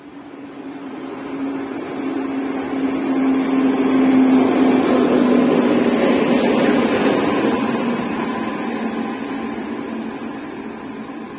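Electric locomotive running light, with no coaches, passing close by on the line: a steady hum with wheel-and-rail noise that grows louder to a peak about four to seven seconds in, then fades as it moves away.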